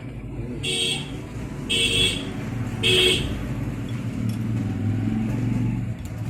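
Three short electronic beeps, about a second apart, over a steady low hum.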